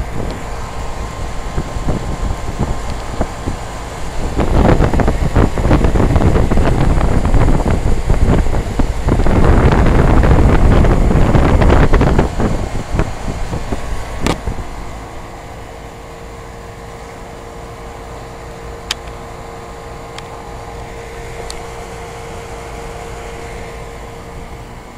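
A 2002 Bryant straight-cool central air-conditioner condensing unit running with a steady hum and a held tone. For several seconds in the first half a loud gusty rush of air buffets the microphone, then it settles back to the even running hum.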